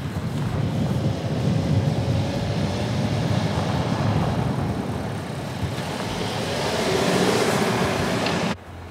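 Skoda Superb Sportline driving by on a snowy road: a steady engine hum with tyre noise. It swells as the car passes close about seven to eight seconds in, the engine note rising briefly, then cuts off suddenly.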